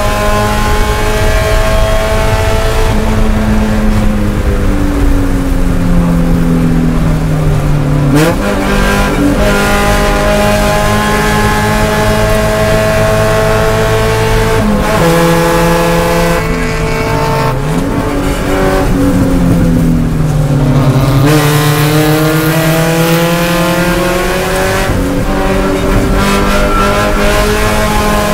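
Spec Miata's four-cylinder engine at high revs, heard from inside the cockpit. Its pitch falls as the car slows for corners, jumps sharply a few times with the downshifts, then climbs again under acceleration, over a steady hiss of road and spray.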